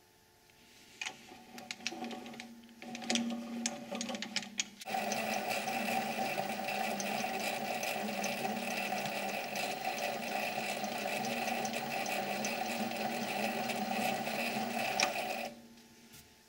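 7x16 mini lathe taking a thread-cutting pass under power feed. After a few seconds of clicks and short starts, the spindle motor and gear train run steadily, with a constant whine, for about ten seconds, then stop abruptly.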